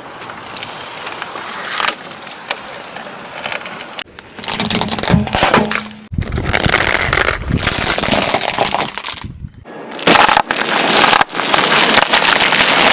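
Crunching and crackling of objects being crushed under a car's tyres, in several loud stretches that cut off and restart abruptly.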